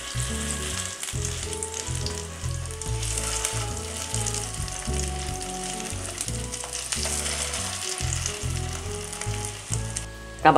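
Oil sizzling and crackling steadily around egg-coated potato-and-beef kabab patties shallow-frying in a pan. Low sustained background music notes run underneath.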